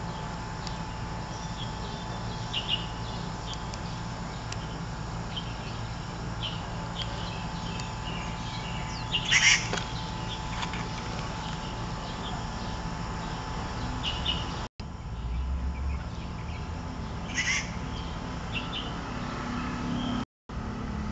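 Birds chirping now and then in short calls over a steady low hum, with a louder call about nine and a half seconds in and another about seventeen seconds in. The sound cuts out briefly twice in the last third.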